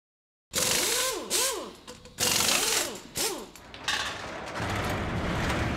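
Intro sound effects: four short bursts of a power tool, its motor whirring up and then down in pitch each time, followed by a rising swell of noise that builds toward the end.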